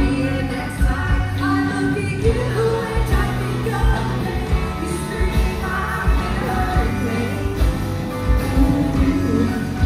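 Live rock band playing: electric guitar, bass guitar, drum kit and keyboard, with a woman singing. Drum hits punctuate sustained bass notes.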